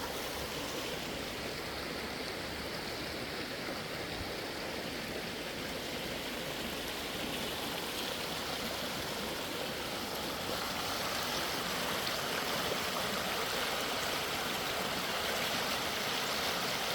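Creek running full after days of rain, with water spilling over small waterfalls in a steady rushing flow that swells slightly about two-thirds of the way through.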